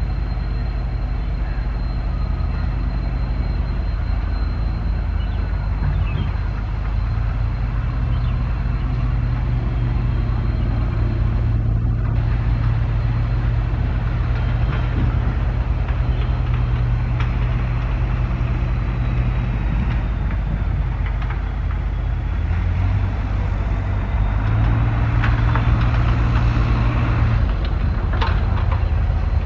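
Indian Railways WDP-4D diesel-electric locomotive's EMD 16-cylinder two-stroke engine running as it approaches slowly at the head of a passenger train: a steady low drone that shifts pitch a couple of times. Wheel and rail clatter grows louder near the end.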